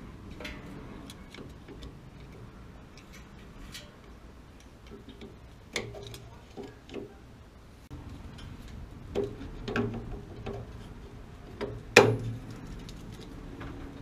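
Scattered small clicks, taps and knocks of a screwdriver and metal parts being worked at a water heater's gas control valve, with the loudest knock about twelve seconds in.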